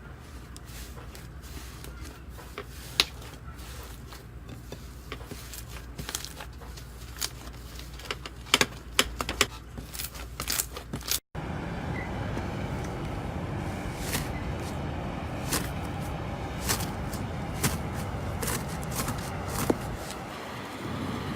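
Slime being pressed and poked by hand, giving irregular sticky clicks and pops over a steady low hum, with a brief break about halfway through.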